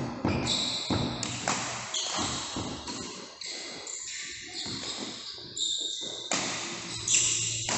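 Badminton play in an indoor hall: a run of sharp racket hits and footfalls, with short high squeaks from shoes on the court floor at several points.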